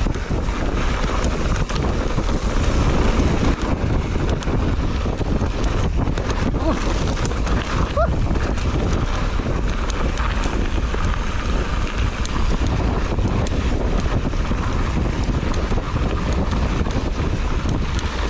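Wind buffeting the microphone as a mountain bike rolls down a dirt trail, with the tyres' rumble and the bike's frame and parts rattling in frequent small clicks.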